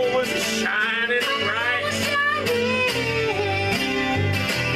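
Acoustic guitar strummed in a country style while a man sings along in a swooping voice.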